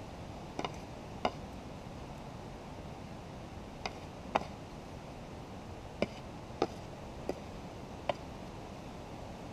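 About eight sharp, scattered clicks and taps from a metal detecting scoop and small stones being handled over the detector coil while soil is sorted for a gold target, over a steady low background hiss.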